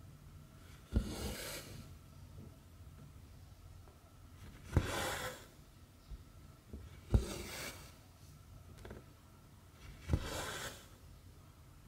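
Hand cross-stitching: the needle taps through the stamped 11-count fabric and the thread is pulled through with a short rasping swish, four times at a slow even pace, with a few fainter taps between.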